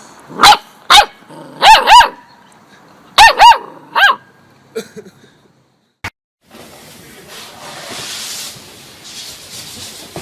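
A dog barking: about seven sharp, loud barks in the first four seconds, several in quick pairs. After a sudden break, a steady hissing noise follows.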